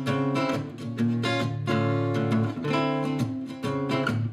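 Acoustic guitar strummed in a steady rhythm, chords ringing between strokes: the instrumental intro of a song.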